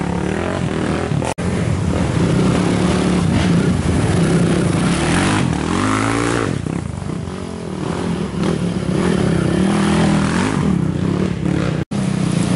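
Racing ATV engines running hard on a trail, revving up and down as the riders work the throttle. The sound drops out for an instant twice, at about a second and a half in and again near the end.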